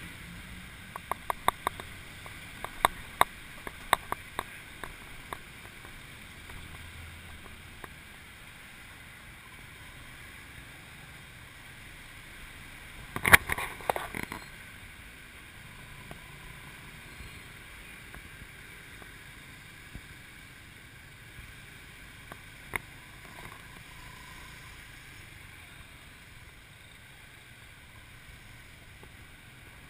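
Steady road and wind noise from a moving motorbike taxi in city traffic, with no clear engine note. A run of sharp clicks comes between about one and five seconds in, and a louder cluster of knocks about thirteen seconds in.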